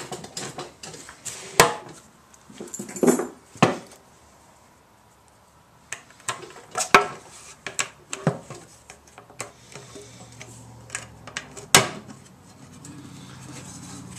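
A snap-on paint-can rim guard being pried and worked off the rim of a metal gallon paint can, making irregular sharp clicks and clanks.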